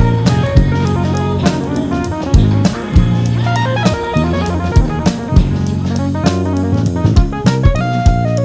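Background music: a band track with drum kit keeping a steady beat under guitar and bass.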